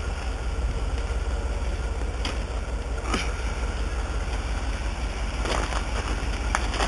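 Wind buffeting the microphone, a steady low rumble, with a few short sharp cracks over it.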